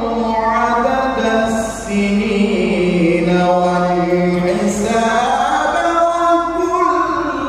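A man recites the Quran alone in the melodic tilawah style, singing into a handheld microphone with long, ornamented held notes. The melody sinks low about two seconds in, then climbs higher in the second half.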